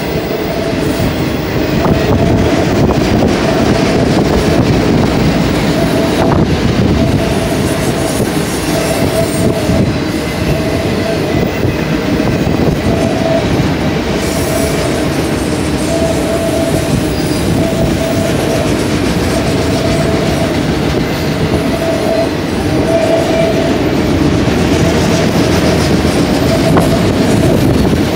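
Autorack freight cars of a BNSF train rolling past, a steady rumble and clatter of wheels on the rails. A high tone comes and goes through it.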